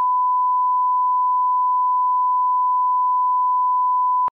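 Steady 1 kHz reference test tone accompanying broadcast colour bars, a single pure beep held at one pitch that cuts off suddenly near the end.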